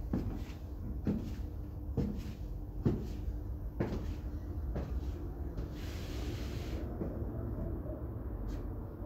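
High heels clicking on a hard tiled floor, about one step a second, the clicks growing fainter after about five seconds. A short hiss comes about six seconds in.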